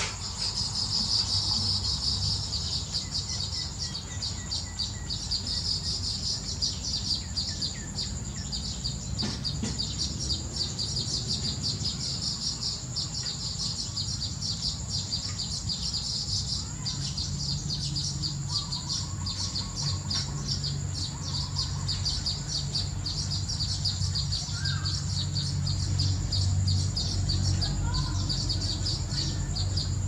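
Weaver birds chattering in a dense, continuous run of fast high twittering, with a thin steady high whine running under it. A low rumble underneath gets louder about halfway through.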